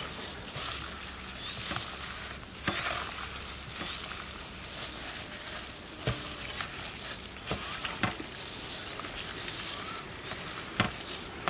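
Gloved hands mixing raw prawns through a wet spice marinade on a steel plate: a steady squelching, crinkling sound of food and thin plastic gloves, with scattered sharp clicks.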